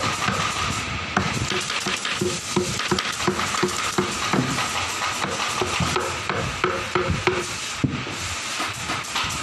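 Workshop noise in an office-chair factory: a steady machine whine under a constant stream of small clicks and clatter, with a run of short repeated low tones, about three a second, in the middle.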